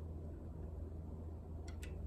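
Two light clicks of a plastic laptop bottom case being fitted into place, near the end, over a steady low background hum.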